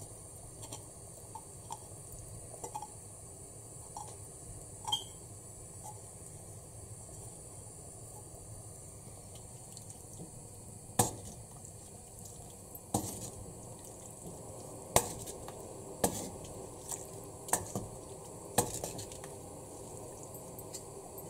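A spoon stirring a clay pot of thick curry, knocking against the pot's rim and sides in a string of sharp separate taps in the second half. Lighter taps and scrapes come early on as paneer cubes are pushed off a clay plate into the pot, over a faint steady background.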